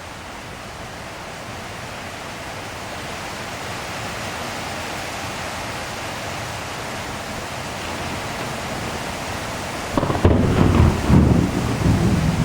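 Steady rain falling, slowly growing louder, then a crack of thunder about ten seconds in that breaks into a loud, low rolling rumble to the end.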